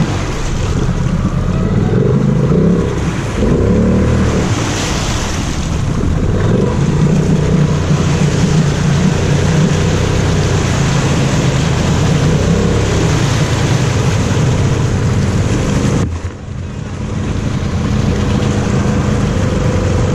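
Polaris Sportsman 850 ATV's twin-cylinder engine being revved hard while stuck in deep mud, with the tyres churning mud and water. The revving drops off briefly about sixteen seconds in, then comes back up.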